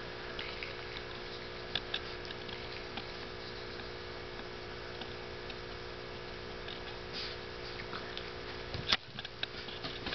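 Steady electrical hum over a faint hiss, with scattered soft clicks and taps. A sharper knock comes about nine seconds in, and the hum stops there.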